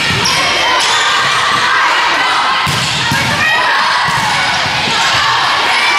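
Volleyball rally in a gym: a few sharp hits of the ball, two close together near the middle, over echoing chatter and players calling out.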